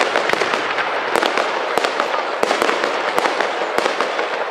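Fireworks display: shells bursting into a dense run of sharp pops and crackles, one after another without a pause.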